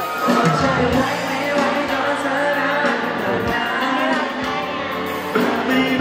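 Live pop song with singing, played loud through the sound system in a large arena hall.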